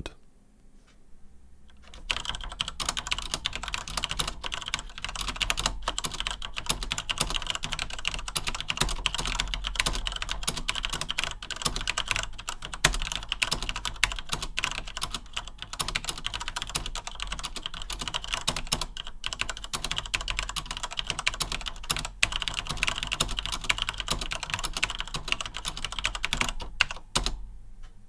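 Fast typing on a Deko Fast Action Keyboard with linear Cherry MX Black switches and PBT keycaps: a dense, continuous clatter of keystrokes that starts about two seconds in and stops shortly before the end.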